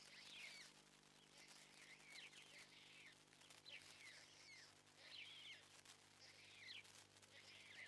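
Faint songbird singing short phrases of quick, high notes, a phrase every second or two, over a low steady hum.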